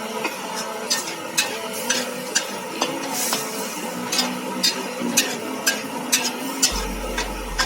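Capcay vegetables being stirred in a pan with tomato sauce: a utensil clicks and scrapes against the pan every half second or so, over a steady sizzling hiss.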